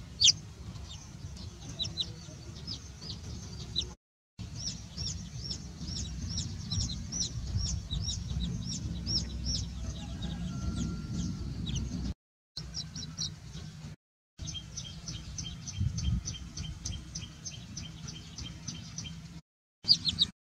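Baby chicks peeping: long runs of short, high cheeps, several a second, over a low rumble, broken by a few brief silences.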